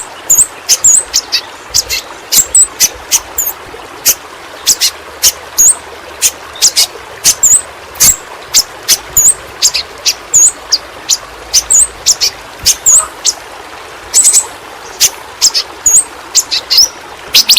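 Yellow-rumped flowerpecker (pentis pelangi) calling: a rapid run of sharp, very high, short chip notes, roughly two or three a second, mixed with brief hooked whistles. A faint steady hiss sits beneath.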